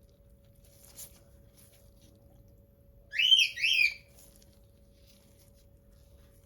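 Two quick high whistled notes about three seconds in, each rising then falling in pitch, over a faint steady hum, with a light click about a second in.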